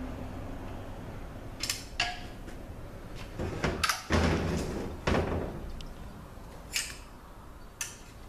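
Metal knocks and clinks as an RE7R01A automatic transmission case is turned over and set down on the workbench, with a heavy thump just after four seconds. After that come lighter clicks of a pick working at a snap ring inside the case.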